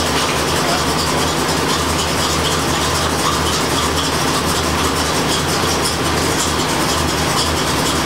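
1985 Corvette's 5.7-litre Tuned Port Injection V8 idling steadily with the air conditioning running.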